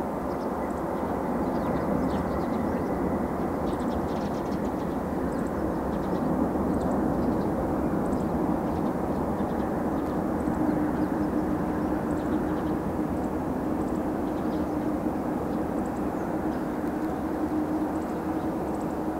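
The four jet engines of a Boeing 747-400 running with a steady, distant rumble as it rolls out after touchdown. A steady hum comes up about halfway through.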